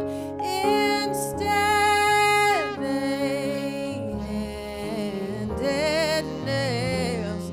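Live jazz: a woman singing long, wavering lines over piano and vibraphone.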